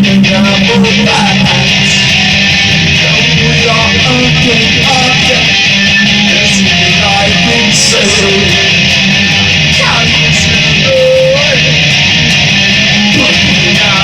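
Electric guitar played through mild distortion, picking short single-note melody lines over a sustained low note, with a bent note about eleven seconds in; recorded on a phone.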